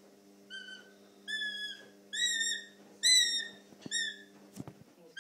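Juvenile northern goshawk giving a run of high, whistled whining calls: five drawn-out notes, each about half a second with a quick upward lift, about one a second and growing louder.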